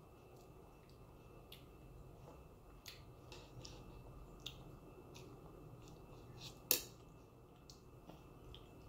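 Faint, scattered small clicks and taps of a toddler eating at a high-chair tray, with one sharper click about two-thirds of the way through.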